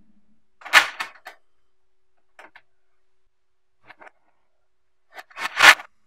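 Small magnetic steel balls clicking and clattering against each other: a loud cluster of clicks about a second in, a few faint clicks in between, and another loud cluster near the end.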